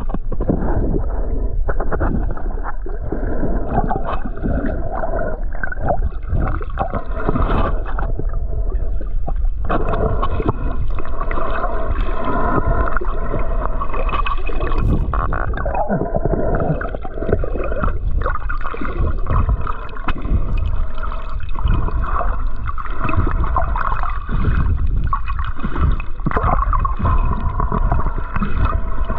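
Gurgling, sloshing water over a steady low rumble.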